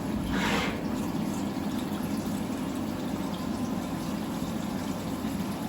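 SyilCNC X7 CNC mill running its machining cycle, a steady machine hum with coolant splashing and flowing over the part. A brief hiss comes about half a second in.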